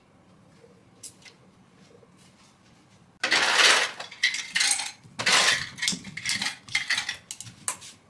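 Ice cubes dropped by hand into stemmed glasses, clattering and clinking against the glass in several loud bursts starting about three seconds in.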